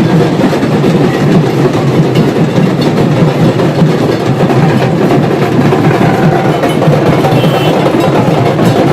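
Dhaks, the large Bengali barrel drums, being played in loud, continuous drumming.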